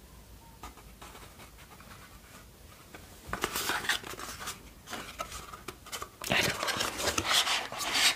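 Cardboard product box handled by hand, the card scraping and rustling as a bottle is slid out of it. Quiet for the first three seconds, then irregular scrapes start and grow denser and louder near the end.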